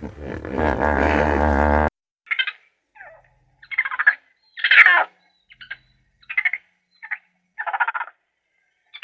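Animal calls: a loud, long, wavering call cut off abruptly about two seconds in, then a string of short calls repeated at irregular intervals of about half a second to a second.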